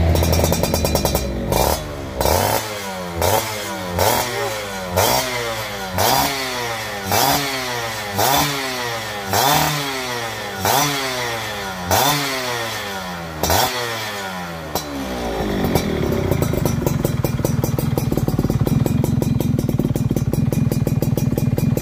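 Yamaha F1ZR's two-stroke single-cylinder engine breathing through a Kensae Pro aftermarket exhaust. It is blipped about a dozen times in quick succession, each rev rising sharply and falling back, then runs steadily for the last several seconds.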